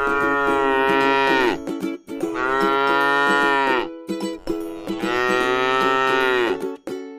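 Cow mooing three times, long drawn-out calls of about one and a half to two seconds each that dip in pitch as they end, over steady background music.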